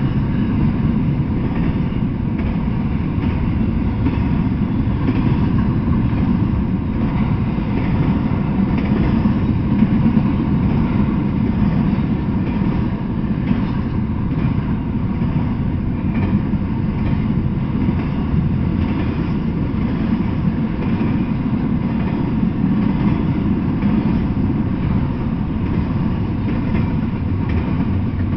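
Double-stack intermodal freight train passing: a steady, loud rumble of steel wheels rolling on the rails.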